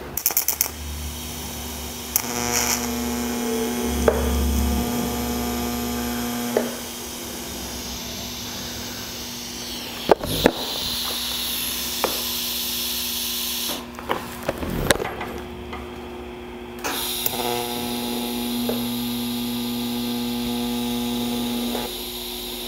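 TIG welding arc buzzing steadily in two tacks of about four to five seconds each, fusing an exhaust flange to its pipe at about 100 amps. A steady hiss of argon gas runs underneath, with a few sharp clicks between the two tacks.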